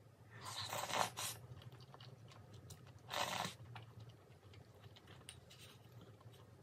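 Close-miked eating sounds of spicy chicken feet with glass noodles: two short slurps, about a second in and again about three seconds in, with wet chewing and lip clicks between them.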